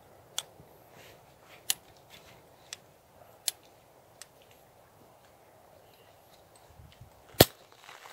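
A series of sharp, separate clicks or snaps, irregularly spaced, the loudest near the end.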